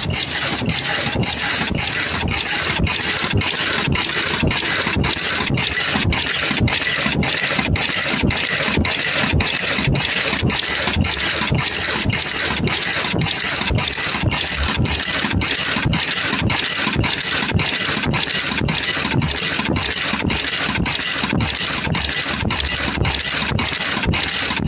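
3-ply mask earloop welding machine running: a steady hissing mechanical noise with a regular pulse about twice a second as the machine cycles.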